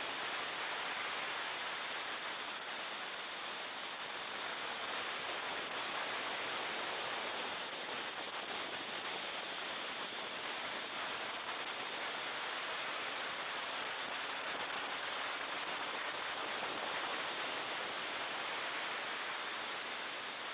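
Steady, muffled rushing noise inside a BMW E36 M3 race car on track: engine, wind and road noise blended into an even hiss with only a faint engine note.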